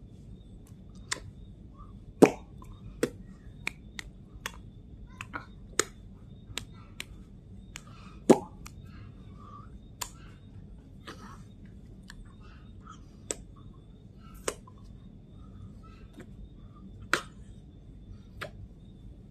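Sharp, irregular clicks and snaps made by a man's hands, finger snaps and light claps, about thirty in all. Two louder ones come about two and eight seconds in.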